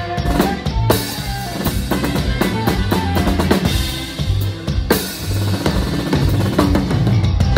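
Drum kit played live with a band: quick snare and tom strokes over bass drum, with two big cymbal crashes, about a second in and again around five seconds, over the band's bass and other instruments.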